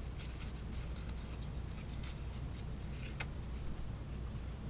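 Scored cardstock strip being handled and folded: light paper rustling and small ticks, with one sharp click a little past three seconds in, over a low steady hum.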